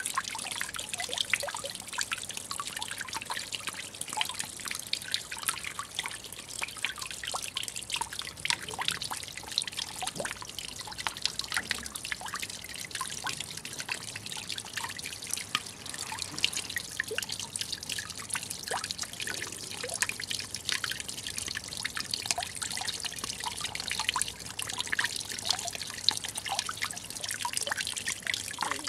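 Water from a small rock cascade trickling and splashing into a garden pond, with many separate drips falling on the water surface.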